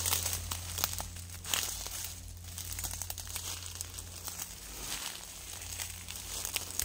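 Dry leaves and brush crackling and crinkling underfoot at irregular moments, over a steady low hum.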